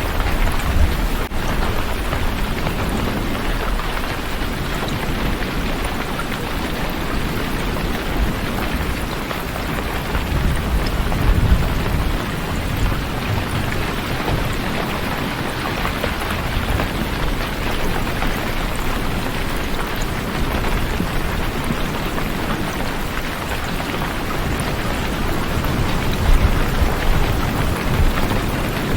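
Steady heavy rainfall, an even hiss of falling rain. Low rumbles swell up twice, about a third of the way in and again near the end.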